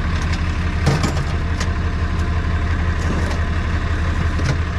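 An engine idling with a steady low throb, a few short knocks over it, the loudest about a second in.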